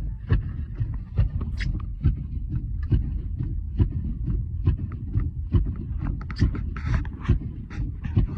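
Vehicle driving through snow, heard from inside: a steady low rumble with an even knock a little over twice a second, and a brief hiss about two-thirds of the way through.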